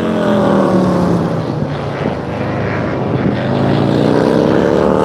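Race motorcycle's V-twin engine coming hard into a corner. Its note falls as the bike slows, then climbs again about three and a half seconds in as it accelerates away.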